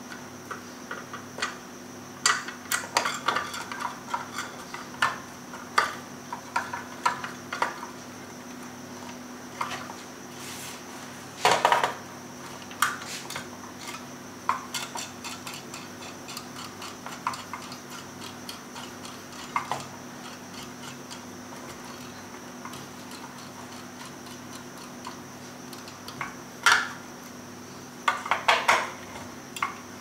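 Screwdriver clicking and scraping as the screws holding the heat sink of a Dell OptiPlex 745 desktop are driven in, with scattered metallic clinks and taps from the heat sink and case. There is a louder clatter about twelve seconds in and more near the end, over a faint steady hum.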